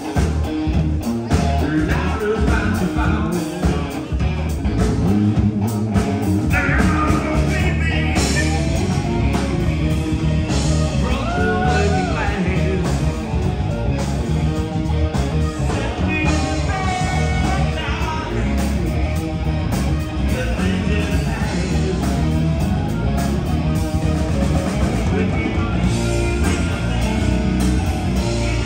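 Live rock band playing: electric guitars, bass and drums with a male lead singer.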